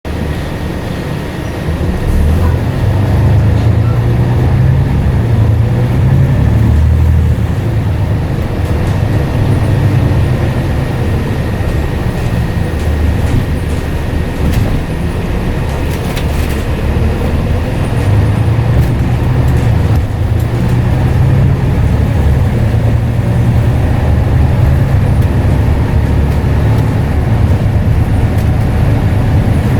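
Scania N94UD Omnidekka double-decker bus's diesel engine running while the bus is under way. It is a deep, steady rumble that gets louder about two seconds in and rises and falls gently in pitch as the bus drives on.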